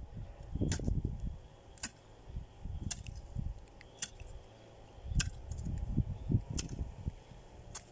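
Hand hoe chopping and scraping into soil, drawing earth up around potato plants: short sharp strikes about once a second. Wind rumbling on the microphone.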